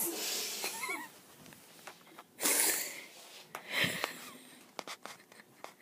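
Two short breathy huffs from a person, about two and a half and four seconds in, with a brief faint bit of voice near the start.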